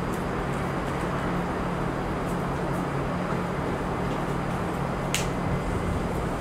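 Steady city background noise: a low hum and hiss like distant traffic, with a short sharp click about five seconds in.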